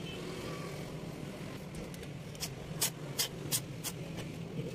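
A handful of sharp plastic clicks, about five in a second and a half around the middle, as the black plastic housing of a car's folding side-mirror motor is handled and fitted together, over a steady low hum like a nearby idling engine.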